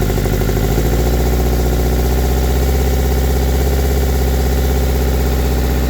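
Toyota Corolla 1.8-litre four-cylinder engine running with the throttle held part open; its speed picks up slightly about a second in as ether sprayed at a cracked vacuum hose is drawn in through the leak.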